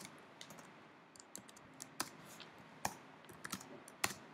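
Faint computer keyboard keystrokes: about ten separate key clicks, irregularly spaced, as code is typed.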